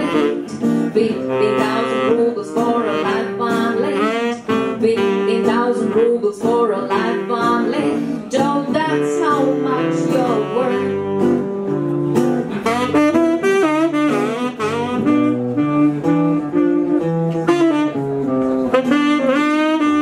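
Live song with a saxophone playing melodic lines over guitar chords, and a woman singing at times.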